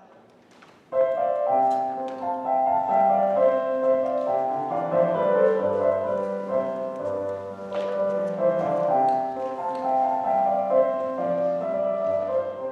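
Piano starts playing about a second in, a steady passage of chords and melody notes.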